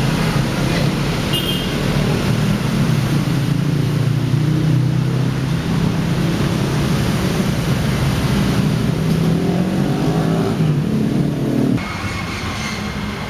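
A motor vehicle's engine running close by amid road traffic, steady and low, rising a little in pitch about ten seconds in, then cutting off abruptly near the end.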